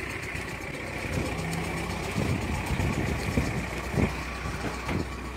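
A motor vehicle engine idling steadily, with rubbing and a few knocks from the camera being handled close against skin and clothing.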